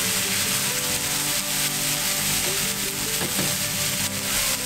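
Chopped onions sizzling in olive oil in a nonstick frying pan, stirred and scraped with a wooden spoon as they soften toward translucent. Background music plays alongside.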